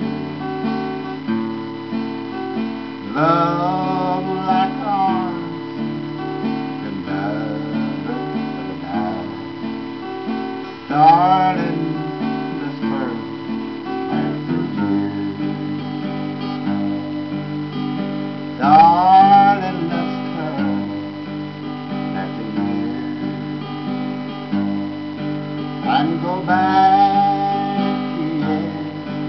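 Acoustic guitar strummed steadily through an instrumental passage of a slow song. A voice rises and falls briefly about four times over it, loudest around the middle and latter part.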